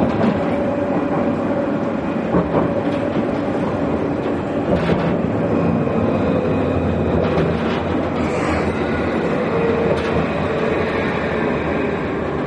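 Luas tram (Alstom Citadis) under way, heard from inside the passenger saloon: a steady rumble of steel wheels on the rails with a faint steady whine. Light clicks from the track come about every two and a half seconds.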